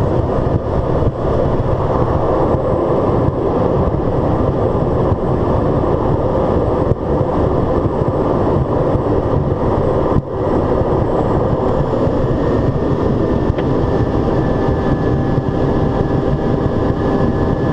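Single PT6A turboprop engine and propeller of a Pilatus PC-12 running, heard as a loud, steady drone from inside the cockpit, with a brief drop about ten seconds in and a faint high whine coming in later.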